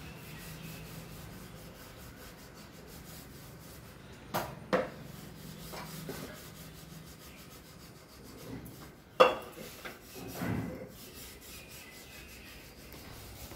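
Scratchy rubbing of cats wrestling on a coir doormat, claws and bodies scuffing the bristles, with a few sharp knocks: two about four and a half seconds in and a louder one about nine seconds in.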